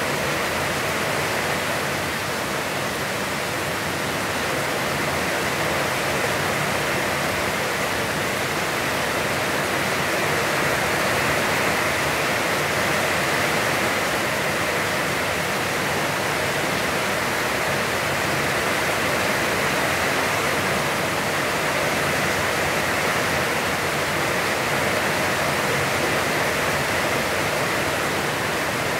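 Heavy, constant rain falling, a steady even hiss with no breaks or thunder claps.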